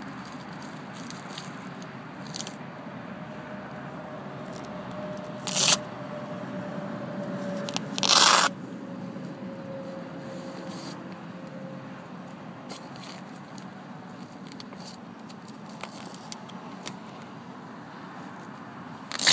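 Fabric sun-visor holster being handled and fitted on a car visor: rubbing and scraping with small clicks, a loud short rip about five and a half seconds in, a longer rip around eight seconds in, and another rip at the end.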